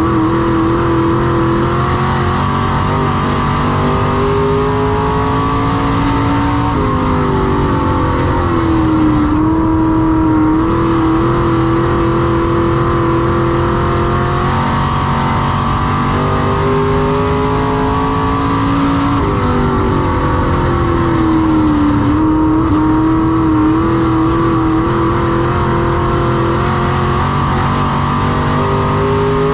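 Semi-late model dirt race car's V8 engine running at racing speed, its pitch climbing and then dipping in a repeating cycle, twice, about thirteen seconds apart.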